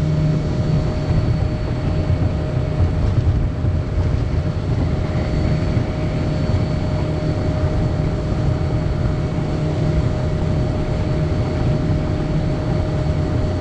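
Flats skiff running at speed on open water: the steady drone of its outboard engine mixed with the rush of wind and spray off the hull.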